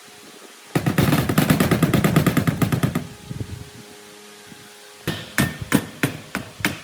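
A fast clattering rattle of rapid impacts for about two seconds, then after a pause a string of separate sharp knocks, about three a second.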